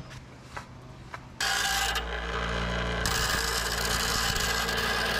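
Delta bench grinder starting suddenly about a second and a half in and running steadily, with a small metal part held in pliers being ground against the wheel.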